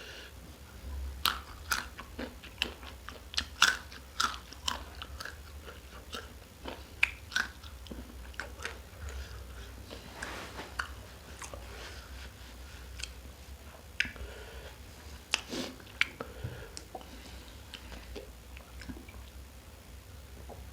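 Close-miked chewing and crunching of food in the mouth: irregular sharp crunches, thickest in the first few seconds and again now and then later, between softer chewing.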